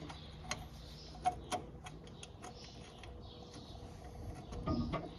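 Light, irregular clicks and taps of hands handling parts and tools in a truck's engine bay, around the water pump.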